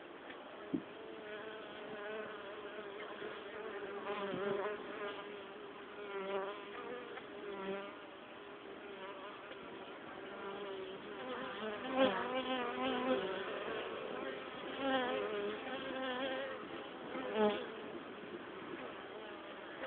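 Honeybees buzzing at a hive entrance during their cleansing flight, the first flight out after winter confinement. There is a steady hum, with individual bees flying past close by in wavering buzzes several times, the loudest about twelve seconds in.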